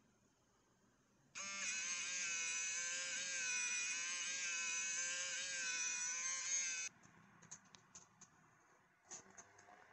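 SwitchBot Blind Tilt's small motor whirring with a steady high whine as it tilts the blind slats. It starts about a second in, runs for about five and a half seconds, and cuts off sharply, followed by a few faint ticks.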